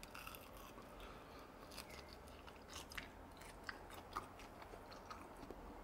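Faint chewing of a chewy rice-cake skewer glazed with gochujang: soft, wet mouth clicks at irregular moments, a little louder around the middle.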